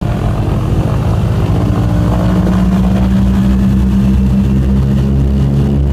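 Douglas DC-3's twin radial piston engines running steadily, heard from inside the cockpit as the plane taxis onto the runway for takeoff.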